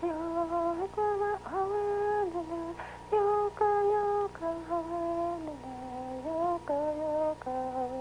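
Background music: a slow, simple melody of held notes, each about half a second to a second long, stepping up and down in pitch.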